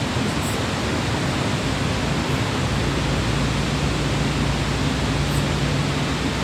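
Waterfall roaring: a steady, loud rush of falling water.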